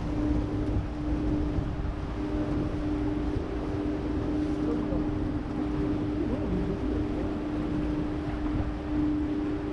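A boat's engine running steadily with a constant low hum, over a rumble of water and wind buffeting the microphone.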